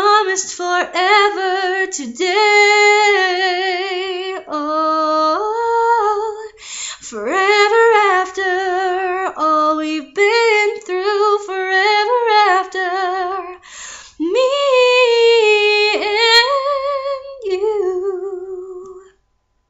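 A woman singing solo a cappella, with held notes that waver in vibrato and short breaths between phrases; the voice fades out near the end.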